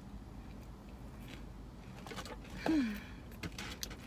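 A person eating a burger: faint clicks and rustles of handling the food, and about two and a half seconds in a short hummed voice sound that falls in pitch, the loudest thing heard.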